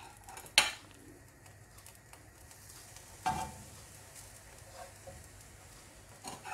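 Faint sizzle of hot melted butter in a nonstick frying pan as a slice of bread is laid in, with a sharp knock about half a second in and a spatula clattering and scraping against the pan about three seconds in and again near the end.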